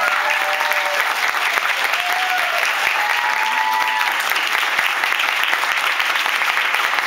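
Audience clapping steadily, with a few held cheers in the first four seconds, at the end of the song.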